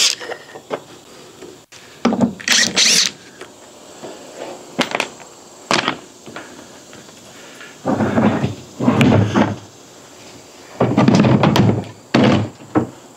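Parts of a wooden chicken brooder being handled as it is taken apart: scattered sharp knocks and a few dull thunks, the heaviest about eight and eleven seconds in.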